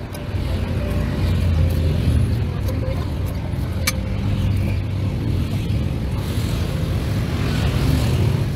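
Steady low rumble of road traffic, with one sharp click about four seconds in.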